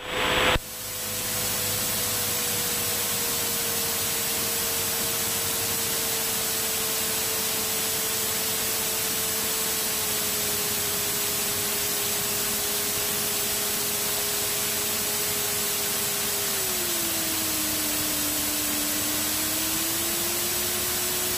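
Steady hiss of a light aircraft's intercom and headset audio feed while taxiing, with a thin steady whine tied to the engine that sinks lower about three-quarters of the way through as the revs come down.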